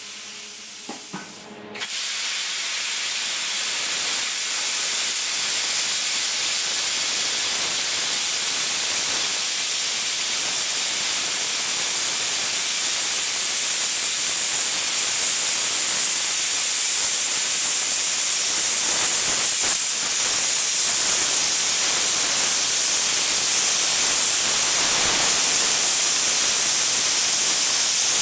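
Oxford CUTmaker 551 air plasma cutter cutting through a 35 mm thick steel block, beyond its rated 31 mm capacity. The arc starts suddenly about two seconds in, then a loud, steady hiss with a thin high-pitched whine runs on.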